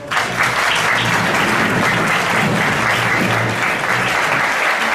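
Large audience applauding: dense, steady clapping that starts abruptly right after a call for applause.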